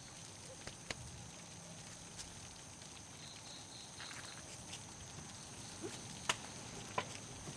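Quiet night ambience with a steady high-pitched insect trill, a few scattered clicks and soft footsteps, the two sharpest near the end, and a short run of chirps about three seconds in.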